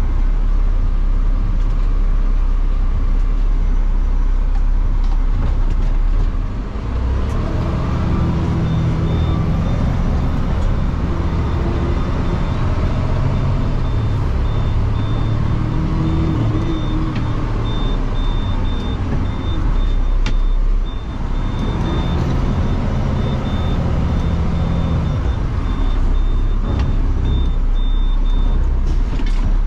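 Automated side-loader garbage truck's engine running, rising as the truck pulls away and again about two-thirds of the way through. A series of short high beeps sounds through most of it.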